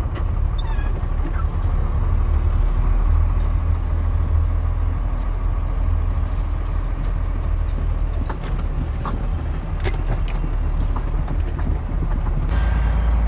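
A heavy oil tanker truck driving, heard from inside the cab: a steady, loud low engine and road rumble with a few light clicks and rattles, getting a little louder near the end.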